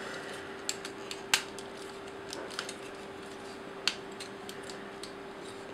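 Hard plastic toy-robot parts clicking and knocking as combiner pieces are handled and pegged together: a handful of separate sharp clicks, the loudest a little over a second in, over a faint steady hum.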